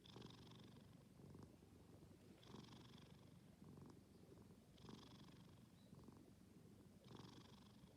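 Sleeping cat snoring softly, four breaths in a slow, even rhythm about two and a half seconds apart, over a continuous low rumble.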